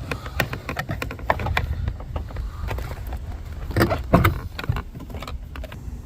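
Flathead screwdriver prying and twisting at a plastic trim piece in a truck's door panel: a run of small plastic clicks and scrapes, with two louder knocks about four seconds in.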